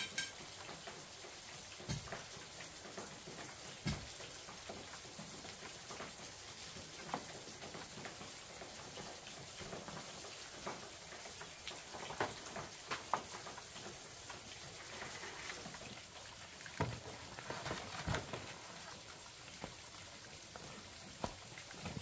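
Steady outdoor hiss dotted with light clicks and knocks, a few louder ones in the second half.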